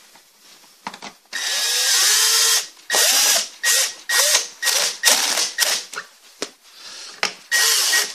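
Aimsak cordless drill-driver running screws in to fasten plastic stand legs onto a TV. It starts with one long run with the motor pitch rising and falling, then a string of short trigger bursts as the screws are driven home and snugged, with another longer run near the end.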